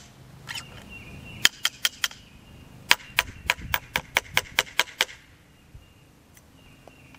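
Sharp metallic clicks and taps from the open breech of a single-shot 12-gauge shotgun fitted with a .38 Special adapter as it is handled for reloading. A few scattered clicks in the first two seconds are followed by a quick, even run of about ten clicks, roughly four a second, which stops about five seconds in.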